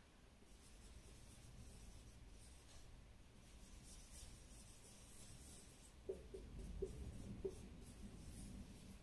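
Marker pen writing on a whiteboard: faint strokes of the tip across the board, with a few short, sharper sounds about six seconds in.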